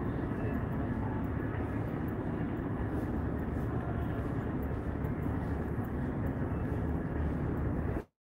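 Steady low outdoor rumble with no distinct events, cutting off abruptly into dead silence near the end.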